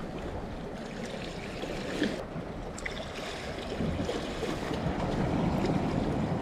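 Seawater sloshing and washing around concrete tetrapods, growing louder about two-thirds of the way through, with a few faint clicks.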